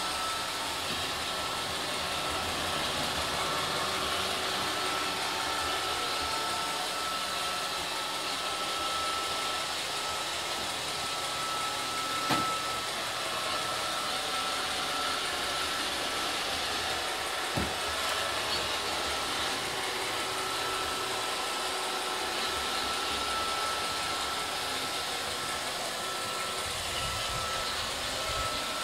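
iRobot Roomba 532 robot vacuum running: a steady whirring of its vacuum and brush motors with a thin steady whine, and two short knocks, one about twelve seconds in and another some five seconds later.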